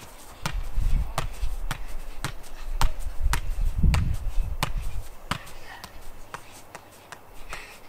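Soccer ball being juggled off foot, thigh and knee: a steady run of short thuds, nearly two touches a second, kept up without a drop. A low rumble sits under the touches through the first five seconds or so.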